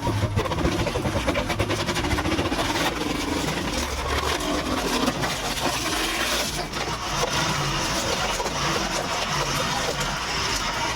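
Engine of a hydraulic log splitter running steadily, with scattered sharp knocks and clatter over it.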